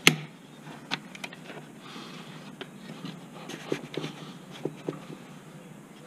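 A sharp click as a C-clamp is snapped into place on the intake pipe at the airbox, followed by a few faint ticks and taps of hands on the plastic airbox and pipe.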